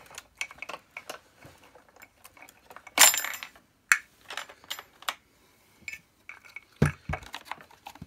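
Clicks, knocks and clatter of a Hoover PurePower Enigma vacuum cleaner's parts being handled as its wheels are taken off, with a loud ringing clatter about three seconds in and two sharp knocks near the end.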